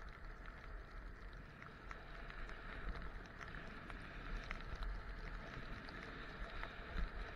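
Steady hiss of skiing through soft snow on the way downhill, with a low wind rumble on the microphone.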